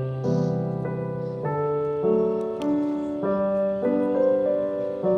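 Background music: gentle piano chords, changing about once a second.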